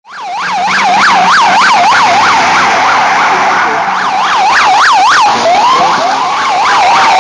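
Emergency vehicle siren on a rapid yelp, about three rising-and-falling sweeps a second, switching to slower rising wails about five seconds in.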